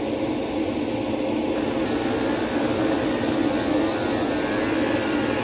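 A steady low whooshing drone of running machinery, like a fan or blower, with a faint extra hiss coming in about a second and a half in.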